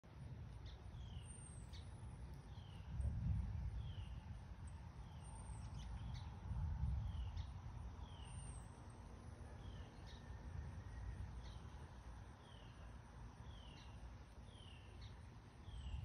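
Wind gusting over the microphone, swelling about three seconds in and again near seven seconds, with a bird repeating a short falling chirp about once a second.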